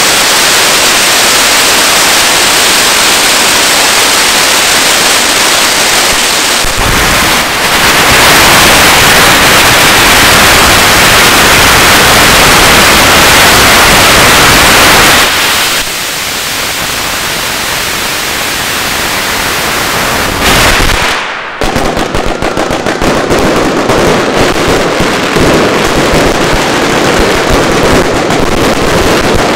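A huge string of fuse-linked firecrackers (truenos de mecha) going off in a continuous, very loud rapid crackle, with ground fountains spraying alongside. The crackle is loudest from about 8 to 15 seconds in, eases a little, breaks off suddenly for a moment about 21 seconds in, then resumes as a dense rattle.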